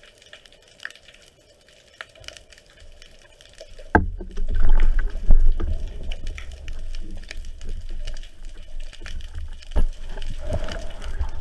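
Underwater camera audio. At first only faint scattered clicks are heard. About four seconds in, a loud, low rumble of moving water starts, with knocks, and continues: water churning against the camera housing as the diver moves and handles his gear near the surface.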